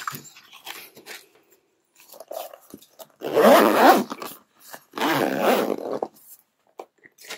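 Small hard-shell accessory case being zipped shut, in two long zip pulls a little after three seconds and about five seconds in, after light clicks and rustling of the cleaning tools being packed into it.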